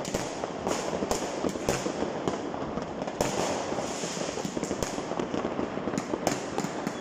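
Many fireworks and firecrackers going off at once: a dense, unbroken crackle of bangs with a few louder reports standing out, one of the strongest just past the middle.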